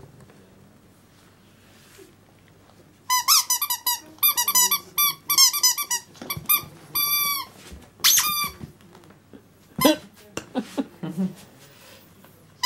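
A rubber squeaky toy being chewed by a pug puppy, giving quick runs of short, high squeaks in several bursts, starting about three seconds in.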